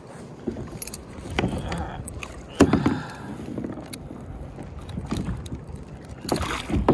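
Splashing and handling noises at the side of a plastic kayak as a hooked rockfish is clamped in a fish-lip gripper at the water's surface and lifted. Scattered clicks and knocks run through it, the loudest a sharp knock about two and a half seconds in.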